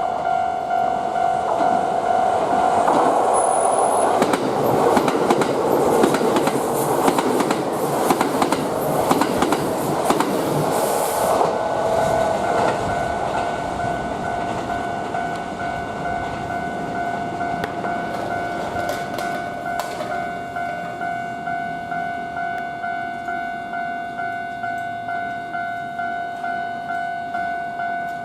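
Japanese level-crossing warning bell ringing with a steady, regular kan-kan. A Kintetsu train passes from about three seconds in until about twelve seconds in, its wheels clicking over the rail joints. The bell keeps ringing after the train has gone.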